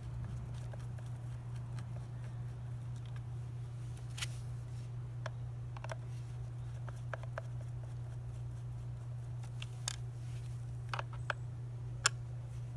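Scattered light clicks and taps of small plastic parts and hand tools being handled, over a steady low hum; the sharpest click comes near the end.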